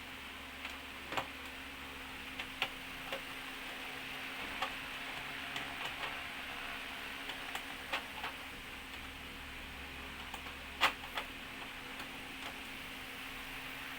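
Scattered light clicks and ticks, at uneven intervals, of small screws and a hand screwdriver as screws are taken out of a flat-screen TV's casing, over a steady faint hiss.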